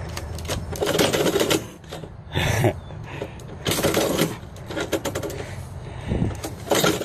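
Metal mail-slot flap in a door clattering and rattling in several bursts as an envelope is pushed in and a cat shoves it back out, with paper scraping through the slot.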